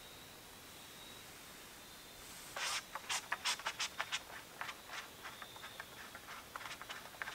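Footsteps crunching on dry ground: a quick, irregular run of sharp crackles that starts about two and a half seconds in. Before it, near quiet with a faint steady high tone.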